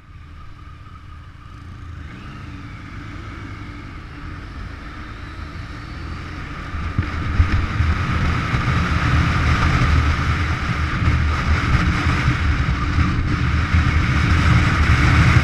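Motorcycle being ridden, heard from the bike: engine rumble with wind rushing over the microphone, growing steadily louder as the bike pulls away and picks up speed, then holding steady at road speed.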